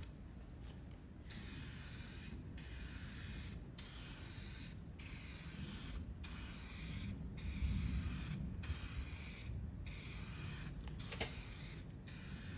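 2K clear coat being sprayed onto a plastic headlight lens: a hissing spray in repeated passes of about a second each, with brief breaks between passes.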